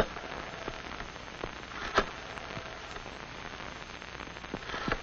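Steady hiss and crackle of an old film soundtrack, with scattered irregular pops; the loudest come right at the start and about two seconds in, with a few more near the end.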